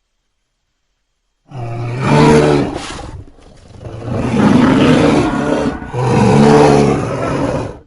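Giant-ape King Kong roar sound effect: three deep, throaty roars in a row, starting about a second and a half in, the last two louder, cutting off sharply at the end.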